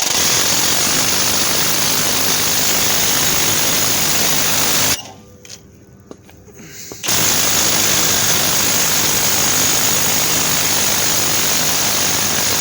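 Impact wrench with a 21 mm socket hammering a tie rod end nut loose, in two long runs of about five and six seconds with a short pause between.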